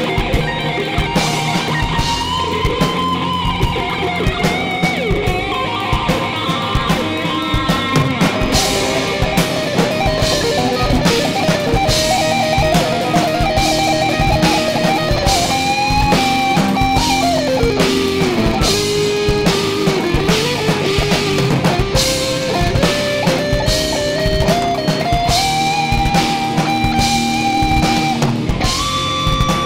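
Live rock band playing an instrumental passage: guitars, bass and drum kit, with a melodic lead line that slides down in pitch about halfway through.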